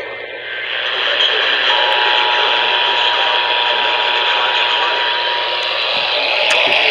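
Radio static hiss and crackle from a receiver with no voice coming through, with a faint steady tone coming in under it about two seconds in and a few clicks near the end.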